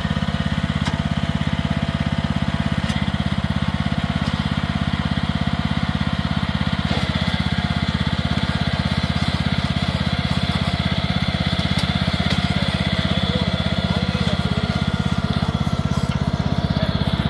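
Small engine of a tracked agricultural power carrier running steadily, with a fast, even firing beat.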